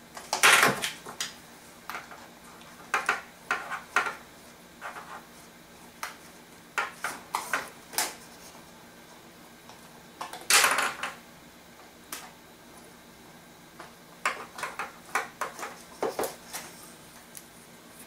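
Cardboard packaging being handled and pulled at by hand while a toy's transmitter is worked free of its insert: irregular rustles, scrapes and clicks, the loudest about half a second in and again around ten seconds in.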